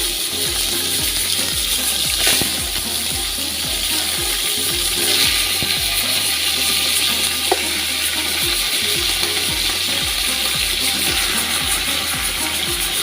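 Chicken pieces sizzling in hot oil with sautéed onion and garlic as they are stirred in the pan, a steady frying hiss broken by a couple of sharp clicks, about two seconds in and again past seven seconds.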